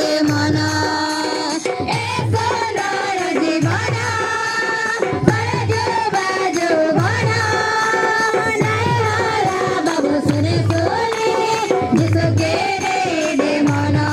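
A group of girls and children singing a song in Odia together, clapping along, over a low drum beat that falls about every two seconds.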